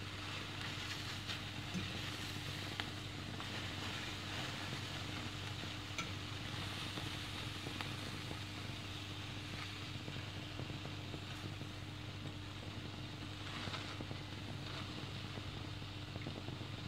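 Beef liver slices sizzling gently in oil in a nonstick frying pan, over a steady low hum, with a few light clicks as a plastic spatula turns the slices.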